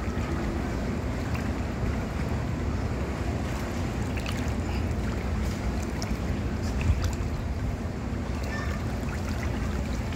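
Steady rushing noise of swimming-pool water lapping right at the microphone, with wind on the microphone, and a few faint ticks.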